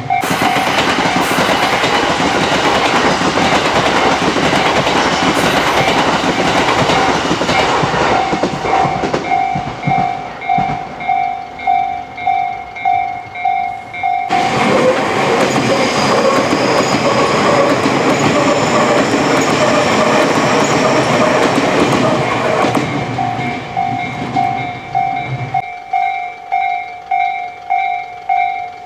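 Japanese railway level-crossing bell ringing its repeating 'kan-kan' throughout, while two Tobu Railway electric trains pass close by over the crossing. One passes from the start and fades by about eight seconds in. The second runs from about halfway to near the end, with a faint whine rising slightly in pitch. The bell is clearest in the gaps between the trains.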